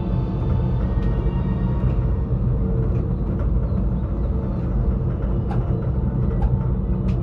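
Aerial ropeway gondola running along its cables, a steady low rumble heard inside the cabin, with a few sharp clicks from about five seconds in.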